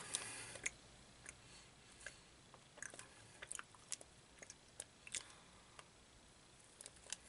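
Faint chewing of a protein bar, with scattered small clicks and soft crunches from the mouth.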